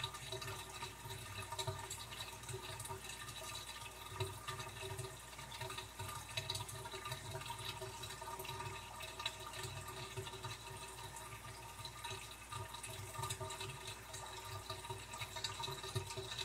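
Steady trickling and bubbling of water in a home aquarium, with many small crackles and a steady hum underneath.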